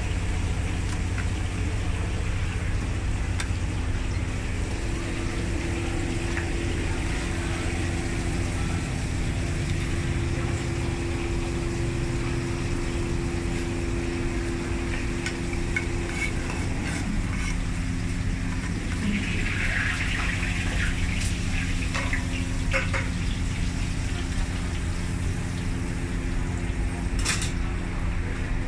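Steady low hum of a restaurant kitchen at work, with a few clicks and scrapes of a frying pan and utensils about halfway through as pasta is tipped out of the pan onto a plate.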